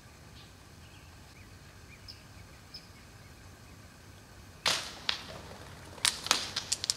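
A few faint high chirps over a low background hum, then about two-thirds through a sudden swishing flurry of bird wings, followed by a quick run of sharp wing flaps.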